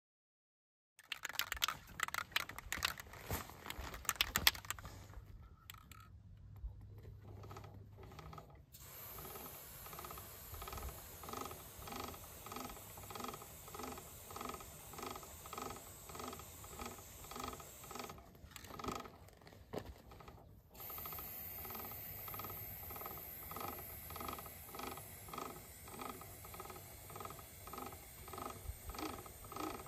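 A few seconds of clattering and rustling of riding gear. Then a Sur-Ron Ultra Bee electric dirt bike's chain is lubed: the rear wheel turned by hand on a stand makes the drivetrain whir in a steady pulse about twice a second, under a long hiss of aerosol chain lube that breaks off briefly about two-thirds of the way through.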